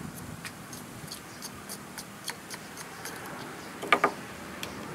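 Light clicks and taps of hands working on a Homelite string trimmer's engine housing and fuel tank, with two sharper knocks close together about four seconds in.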